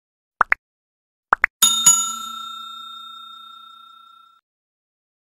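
Subscribe-button sound effects: two quick double clicks as the buttons are tapped, then a bright notification-bell ding, struck twice in quick succession, that rings out and fades over about two and a half seconds.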